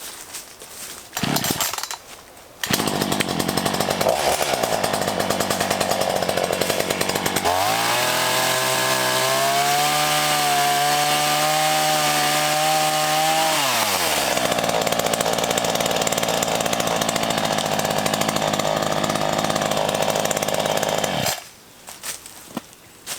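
A Black Max 16-inch chainsaw's two-stroke petrol engine cutting through a tree trunk. It runs briefly about a second in, then runs steadily. Around the middle it revs up to a higher, steady pitch at full throttle for about six seconds, drops back, and runs on until it cuts off shortly before the end.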